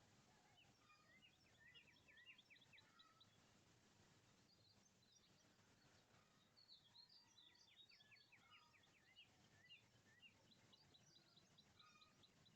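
Faint songbird song: three phrases of quick, high chirps, the last a run of evenly repeated notes, over a low steady background hum.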